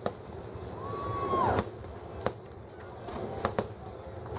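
Aerial fireworks bursting: about five sharp bangs, two of them close together about three and a half seconds in. Midway there is a brief held whistle that falls in pitch as it ends.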